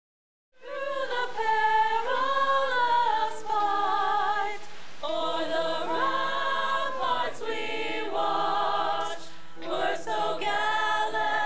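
A group of young voices singing together a cappella, choir-style, with sustained, wavering notes. The singing starts about half a second in.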